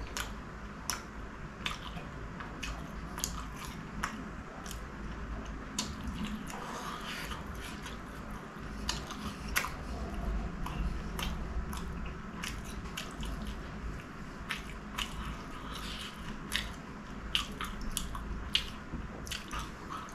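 Close-miked chewing of a mouthful of chicken samosa with the mouth closed, with irregular mouth clicks a few times a second.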